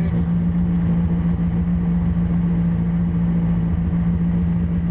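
Peugeot 106 rally car's engine running at a steady, unchanging speed with the car standing still, heard from inside the cabin.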